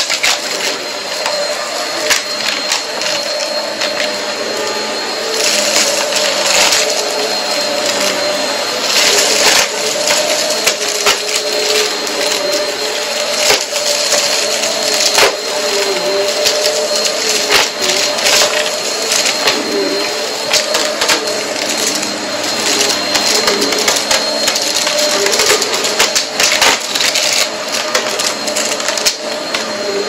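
Vacuum cleaner running steadily over a rug, its motor hum wavering and dipping now and then, with many sharp crackles of crunchy dirt being sucked up.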